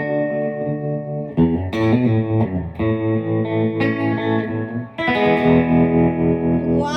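Mid-1960s Magnatone Tornado electric guitar played through a mid-1960s Danelectro DM25 tube amp, ringing chords and sustained notes, with a new chord struck about a second and a half in and another about five seconds in.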